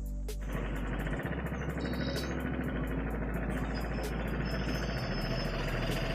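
Motorcycle engine running at low speed and idling as the bike comes to a stop. It starts about half a second in, with background music underneath.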